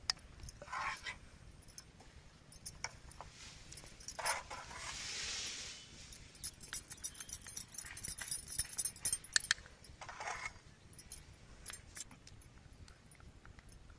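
Metal spoon clinking and scraping against a small glass bowl as hot sugar syrup is stirred into red food colouring, with a quick run of clinks in the middle of the stretch.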